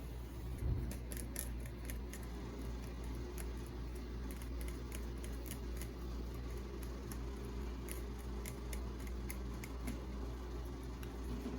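Light, irregular clicks and taps, several a second, of small items being handled, over a steady low hum.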